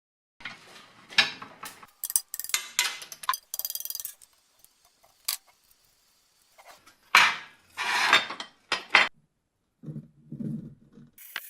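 Short bursts of metal parts and hand tools clinking, scraping and knocking, with dead-silent gaps between them; near the end come a few dull low thumps.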